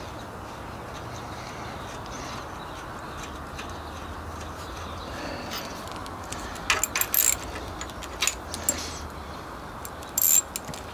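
Metal parts and hand tools being handled on a gearbox mount: a few sharp, light metallic clicks and clinks, starting about halfway through and loudest near the end, over a faint steady background hum.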